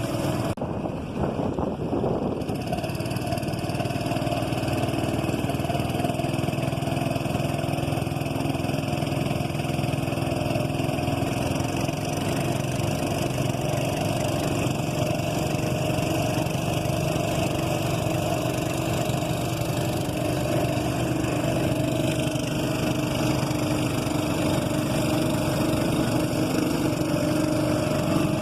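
Boat engine running steadily at an even speed, a constant drone.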